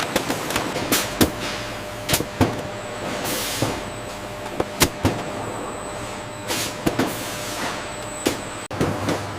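Food-processing factory machinery running: a steady hiss with a faint high whine, broken by irregular sharp clicks and knocks. The sound changes abruptly near the end.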